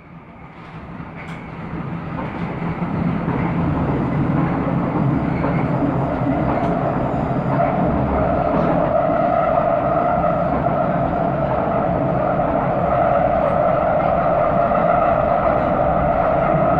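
Underground train running: a steady rumble fading in over the first three seconds, then holding level, with a steady tone swelling in from about halfway.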